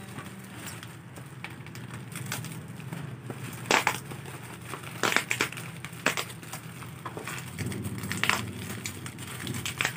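Plastic packaging crinkling and crackling as it is squeezed and tugged at, with several sharp snaps, while a stubborn wrapping is forced open.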